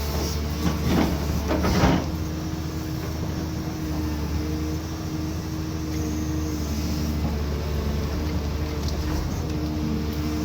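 Cat 320D2 hydraulic excavator's diesel engine running steadily under load, with a louder stretch of crackling noise about one to two seconds in.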